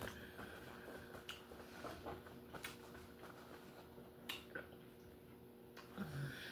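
Quiet close-miked eating: soft mouth clicks and wet smacks of chewing, a few separate clicks a second or so apart, over a faint steady hum.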